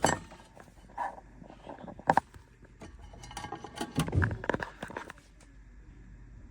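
Handling noise: a few sharp clicks and knocks, then a stretch of rustling and scraping about four seconds in.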